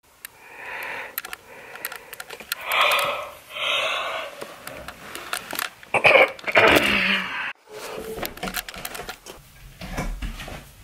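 Several loud, breathy, hissing breaths from a person, then scattered knocks, creaks and a low thump as someone climbs the wooden ladder of a bunk bed.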